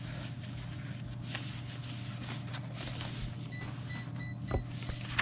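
Faint rustling and handling of paper, a folded origami model and the pages of an origami book, over a steady low hum. There is a soft knock about four and a half seconds in and a faint broken high beeping near the end.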